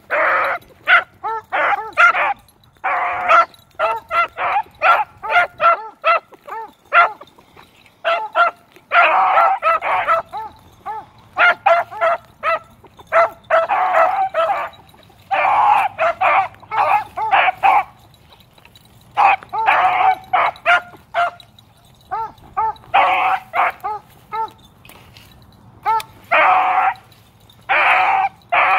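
Beagle pups baying while running a scent trail, in repeated bursts of short barks and longer drawn-out bays with brief gaps between them.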